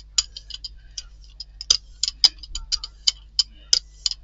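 Hand brayer rolled back and forth through black acrylic paint on a gel printing plate, the tacky paint giving an irregular crackle of sharp high ticks, several a second.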